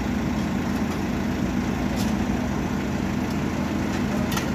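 Cat backhoe loader's diesel engine running steadily, with a couple of brief clicks.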